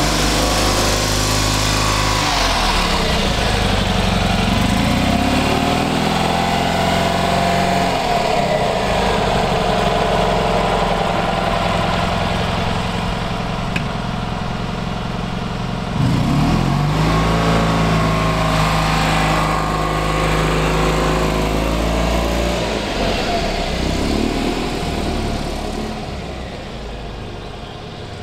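Freshly rebuilt Fiat 500 F 499cc air-cooled two-cylinder engine driving by, revving up and easing off so that its pitch climbs and drops several times. It climbs sharply about 16 seconds in and fades away over the last few seconds.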